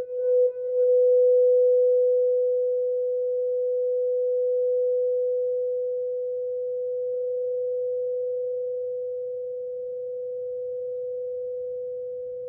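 Quartz crystal singing bowl sounding a sustained, nearly pure tone at about 528 Hz. It throbs a few times in the first second, then rings smoothly, slowly swelling and easing off.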